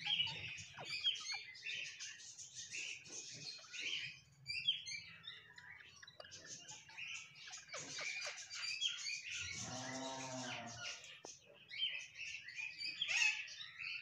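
Rose-ringed parakeets chattering: rapid, high chirps and squeaks, some dense and some in short runs. A lower, drawn-out call sounds about ten seconds in.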